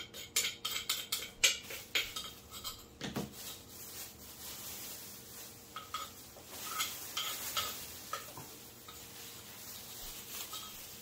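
Kitchen utensils knocking and clinking against pots and dishes: a quick run of sharp clinks over the first three seconds, then scattered clinks.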